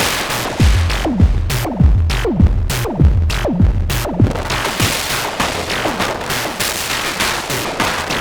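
Moog DFAM analogue percussion synthesizer running its sequencer: a repeating pattern of sharp noisy hits and downward-sweeping drum tones, about two a second. About halfway through, the downward sweeps fade and the sound turns thinner and hissier.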